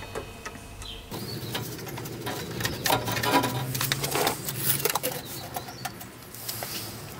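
Corrugated plastic extraction hose being handled and pushed onto a table saw's dust-outlet connector: irregular scraping and light plastic knocks.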